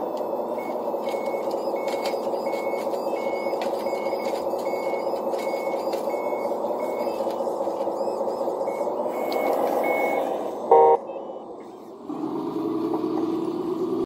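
Electronic sound module of an RC wheel loader playing a diesel engine note while its reversing beeper sounds about every 0.7 seconds. The beeping stops about ten seconds in, a short loud horn-like blast follows, and then the engine note drops lower.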